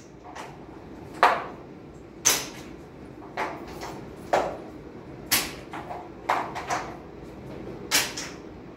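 Hard objects being knocked and set down during battery replacement work: a string of sharp clacks about once a second, a few in quick pairs.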